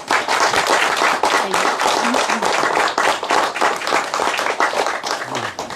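A small audience applauding, many pairs of hands clapping together; the applause dies away near the end.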